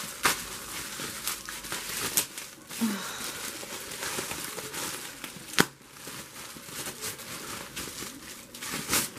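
Plastic bubble wrap crinkling and crackling as it is unwrapped by hand, with a sharp crack about five and a half seconds in.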